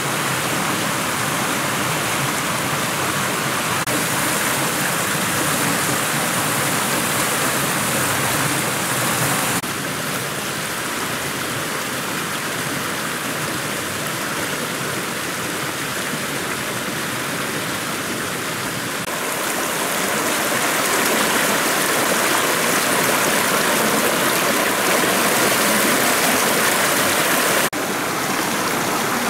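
Steady rushing water of a small stream pouring over a low ledge, with its level dropping abruptly about ten seconds in, rising again later and shifting suddenly near the end.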